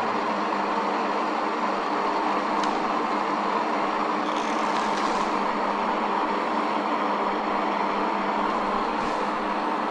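Steady electronic static hiss with a low hum under it, unbroken and even in level, coming from a small boxy electronic device with a screen, used as a ghost-hunting box to answer spoken questions.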